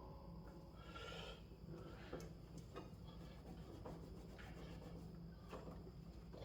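Near silence: room tone with a faint steady hum and a few scattered light clicks and taps.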